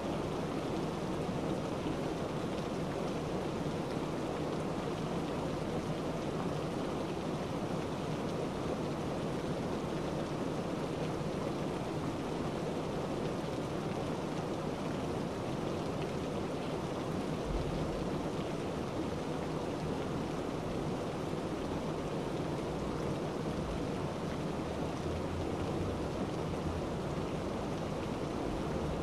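Steady, even rushing noise with no distinct events, like rain or running water.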